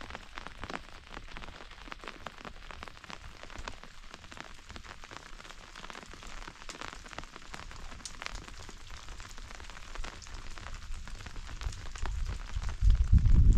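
Rain pattering: a steady hiss dense with small drop ticks. Near the end a deep low rumble builds and becomes the loudest sound.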